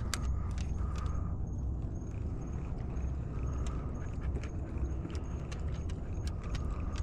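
A dog's collar tags jingling and its claws clicking on a fiberglass boat deck as it walks about, in short irregular clicks, over a steady low rumble.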